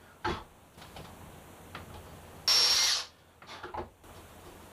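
Cordless drill run in one short burst of about half a second, a little over two seconds in, on a hinge for a wooden hatch panel. A sharp knock comes just before it, and a few light knocks follow.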